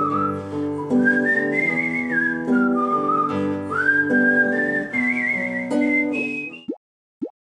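Intro music: a whistled melody with a slight waver, over sustained backing chords. The music stops about six and a half seconds in, and two short rising blip sound effects follow.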